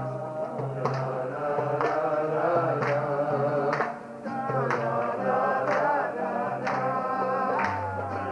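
Acoustic guitar strummed with a strong stroke about once a second, under a man singing a melody into the microphone.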